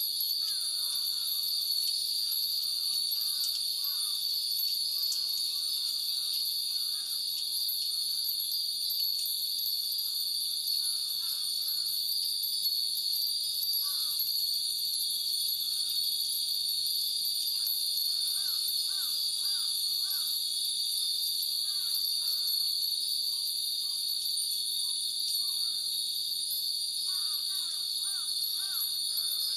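Many hanging metal wind chimes tinkling in irregular clusters as the breeze stirs them, over a steady high-pitched drone of insects.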